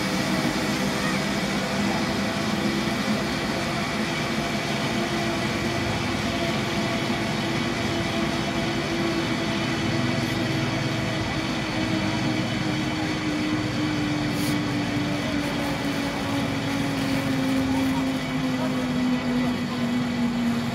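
Zipline trolley pulleys running along the steel cable: a steady whine that falls slowly in pitch, over a rushing hiss.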